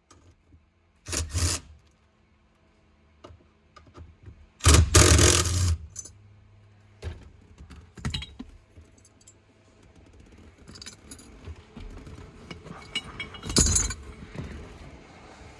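Metal parts and hardware clinking and rattling as they are handled, in separate bursts, the loudest a clatter about five seconds in.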